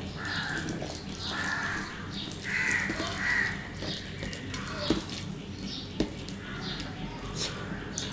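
Harsh bird calls repeated several times, mostly in the first half. Underneath are soft sounds of fingers working rice on a steel plate and chewing, with two sharp clicks about halfway through and a second later.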